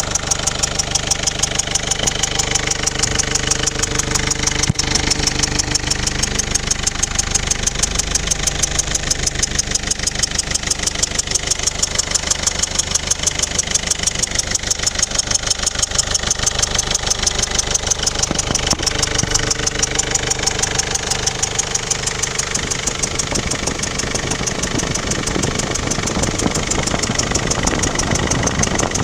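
Mercedes-Benz OM 611 CDI four-cylinder common-rail diesel idling steadily with a regular, rapid pulsing beat. It carries an extraneous chomping noise that is loudest from the rear right of the engine and whose cause the owner cannot work out.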